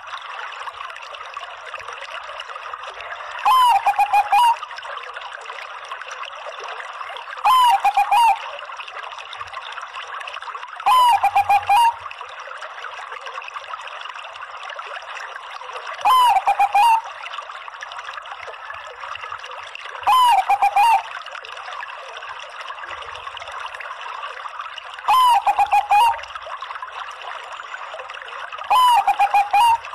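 Bangkok-type zebra dove (perkutut) cooing: seven loud phrases about every four seconds. Each phrase opens with a sharp high note and runs into a quick string of lower coos. Behind them is a steady trickling hiss like running water.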